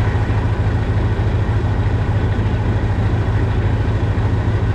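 Tractor diesel engine running steadily close by, with a low, even throb; it is the tractor that holds the big-bag lifting frame while a fertilizer spreader is filled.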